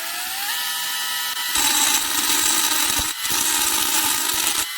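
Cordless mini rotary engraver whining as its motor comes up to speed and levels off, then its bit grinding into glass from about a second and a half in, with two brief breaks where it lifts off.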